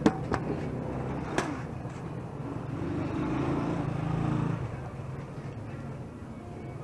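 Metal ladle clinking against the taho vendor's aluminium container, a sharp clink right at the start and another about a second and a half in, over steady street traffic. A motor vehicle's engine hum swells and fades in the middle.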